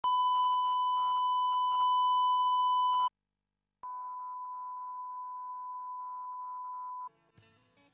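1 kHz line-up test tone played with colour bars. A steady beep runs for about three seconds, stops for a short break, then returns quieter for about three more seconds.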